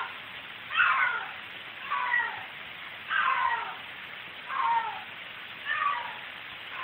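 A domestic cat meowing over and over, one cry a little more than once a second, each cry falling in pitch.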